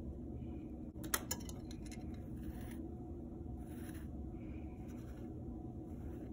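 Faint handling sounds of yarn being pulled through a hole in a clay loom frame: soft rustling and scraping, with a couple of light clicks about a second in, over a steady low room hum.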